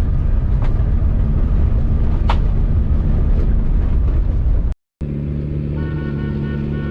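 Turbo Volvo 940 rally car driving on a gravel riverbed, a loud low rumble with a couple of sharp clicks. After a brief cut the engine runs at a steady hum.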